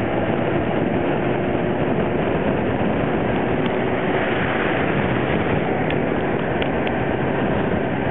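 Steady rush of wind over the microphone with the engine and tyre noise of a vehicle riding at speed along a paved road.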